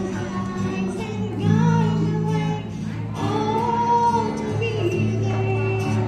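A woman singing a slow song with held notes, accompanied by an acoustic guitar.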